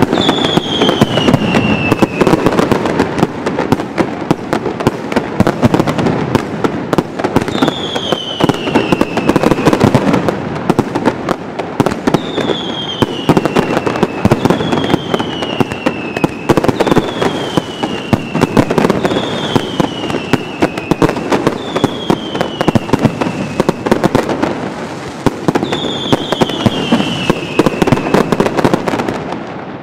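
Mascletà: a dense, unbroken barrage of firecracker and salute bangs. Whistling fireworks cut through it about eight times, each a whistle falling in pitch over a second or two.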